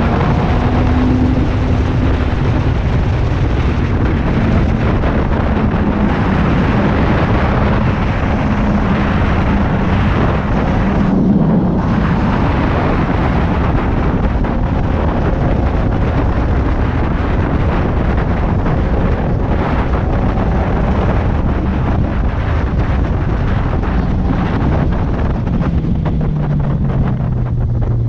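Heavy wind noise on the microphone at highway speed over the steady drone of a Suzuki Katana's inline-four engine. Near the end the engine note falls as the bike slows.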